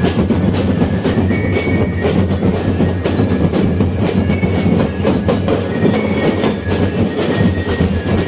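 Drums and metal percussion beaten together in a fast, dense, steady rhythm, like a street drum band.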